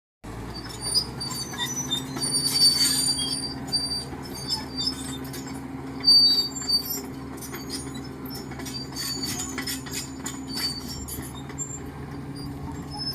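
Heavy road-construction machinery: a diesel engine runs steadily, with repeated high metallic squeaks and clanks throughout. The clanking is loudest around three seconds in and again about six seconds in.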